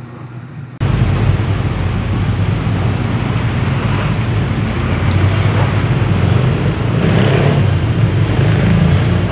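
Busy city street traffic, a steady heavy low rumble of passing vehicles, starting abruptly about a second in.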